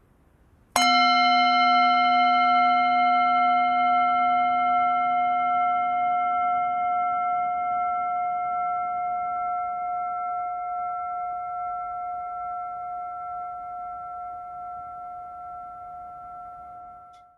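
A singing bowl struck once, ringing with a low hum and several higher tones. It fades slowly for about sixteen seconds and is cut off abruptly near the end, sounded to close a service.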